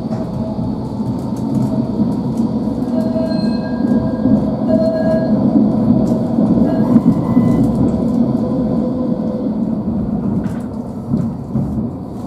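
Tram running on its rails, heard from inside the car: a continuous wheel-on-rail rumble that swells in the middle, with faint high tones about three to five seconds in and scattered clicks.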